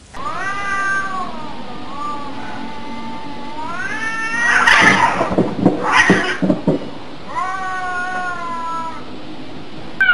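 A cat yowling in long drawn-out calls: one lasting about four seconds that rises in pitch at its end, then a few seconds of harsh, noisy outbursts, then a second long call near the end.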